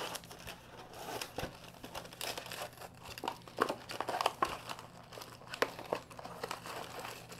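Packaging crinkling and crackling in irregular bursts as a power cord is pulled out of its box and wrapping.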